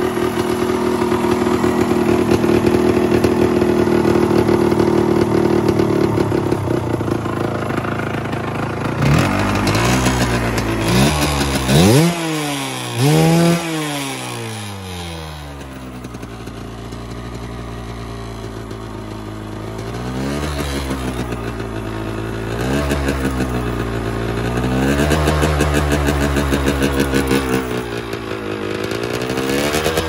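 1974 Can-Am 125 Pro Circuit dirt bike's two-stroke single-cylinder engine, fitted with a spark-arrestor muffler, run for a stationary sound-level test. It holds a steady high speed for about six seconds, is blipped in several quick revs, drops back to idle, then is revved up and down again in slower swells.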